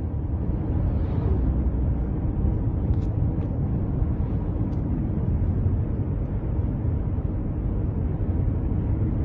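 Steady low rumble of a car driving along a road, tyre and engine noise with some wind, heard from a following car.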